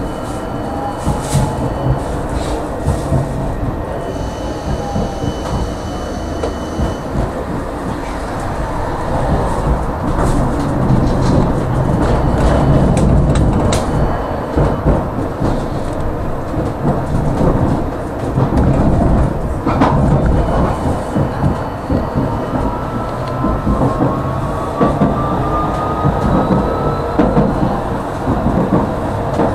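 Tram running along its rails, heard from inside the passenger car: a steady rumble of wheels on track with scattered clicks and knocks, and a thin whine that rises over several seconds near the end.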